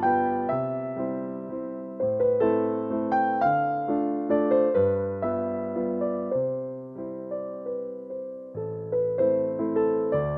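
Background music: a slow, gentle piano piece, chords struck and fading over a low bass note that changes every second or two.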